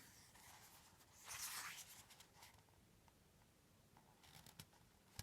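Near silence: room tone, with a brief soft rustle of a book page turning about a second and a half in, and a few faint clicks near the end.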